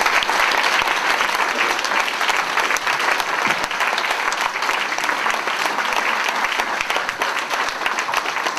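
An audience applauding: many people clapping at once, a steady, dense patter of claps throughout.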